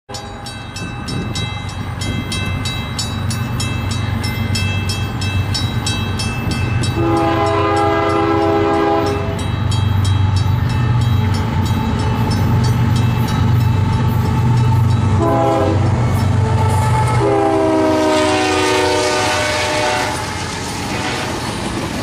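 Grade-crossing bell ringing steadily while a GE diesel freight train approaches, led by a Canadian Pacific AC4400CW, its engines rumbling louder. The lead locomotive's air horn sounds the crossing warning: a long blast, a short one, then another long blast whose pitch drops as the locomotive passes.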